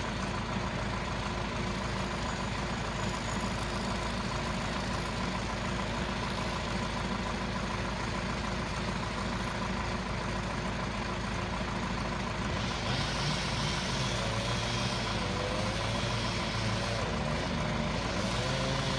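An engine running steadily at a constant speed, with an unchanging hum throughout.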